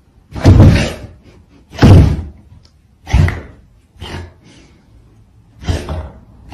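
Large dog giving deep, loud barks at a cat, five in a row about a second apart.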